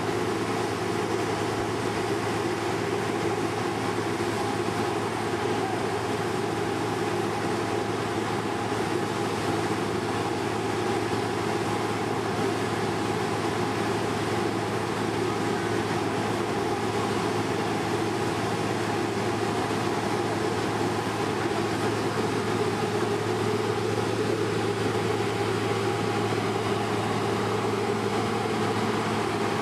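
Claas Lexion 460 combine harvester running at a steady speed while it unloads grain through its unloading auger, a continuous even drone with a strong low hum.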